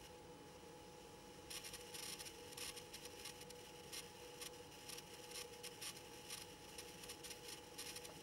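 Near silence: faint room tone with a steady low hum and scattered light crackling rustles.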